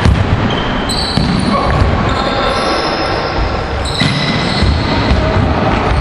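Basketball bouncing on a hardwood gym floor during play, irregular thuds, with high-pitched squeaks from players' sneakers.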